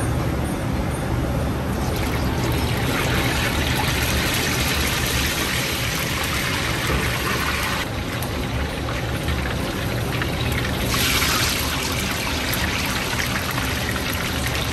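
Fish deep-frying in a wok of hot oil, bubbling and sizzling steadily over a low rumble. The sizzle grows louder about two seconds in, eases off around eight seconds, and is at its strongest near eleven seconds.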